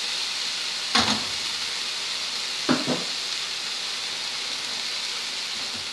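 Chopped taioba greens sizzling in a frying pan, a steady hiss. A metal spoon knocks against the pan once about a second in and twice in quick succession near three seconds as manioc flour is stirred in.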